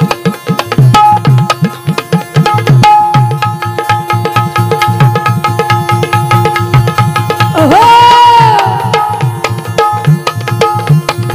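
Dholki drum played in a fast, driving rhythm under sustained electronic keyboard notes: an instrumental interlude in a Marathi Khandoba devotional song. About two-thirds in, a single high note swoops up and is held for about a second before fading.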